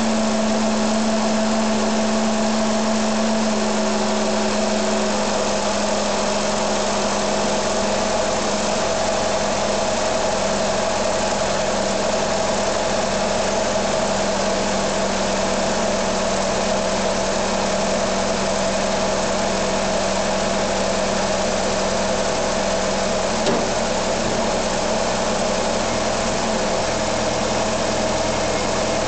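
Pontiac 151 cubic-inch Iron Duke inline-four with throttle-body fuel injection idling steadily, its pitch settling slightly lower about five seconds in. One brief click is heard about three quarters of the way through.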